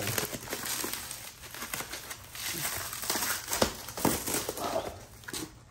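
Packaging wrap crinkling and rustling as it is pulled off a fan base, in irregular crackles that die down near the end.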